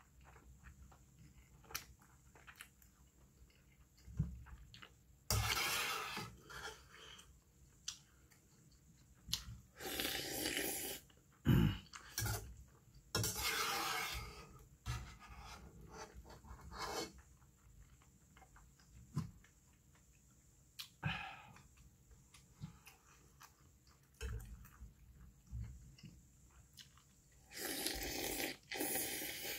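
Close-up eating sounds of beef tripe and intestine soup: chewing, a metal spoon clicking and scraping in a metal pot, and several long noisy slurps, the last near the end as broth is slurped straight from the pot.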